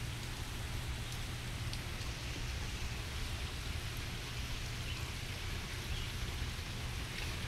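Steady rain falling: an even hiss with a few separate drops ticking.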